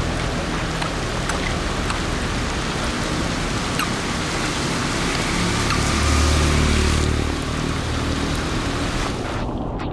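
Heavy rain falling steadily. A low rumble swells briefly about six seconds in.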